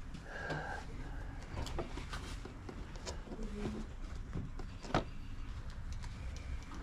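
Light clicks and knocks of small items being handled on a cluttered sale table, with a sharper click about five seconds in, over a low steady rumble.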